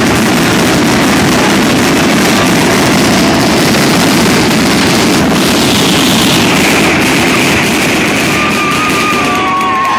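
Fireworks finale barrage: many fireworks going off at once, heard as a dense, unbroken wall of noise that eases slightly near the end. In the last couple of seconds, people start cheering and whistling.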